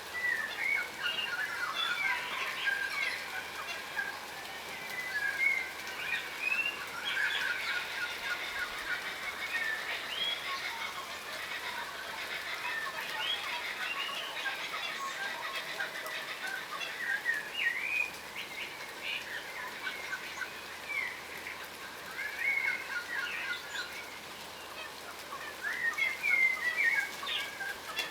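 Yellow rosellas (a crimson rosella subspecies) chattering, a continuous run of short chirps and quick rising and falling whistled notes, busiest near the start and again near the end.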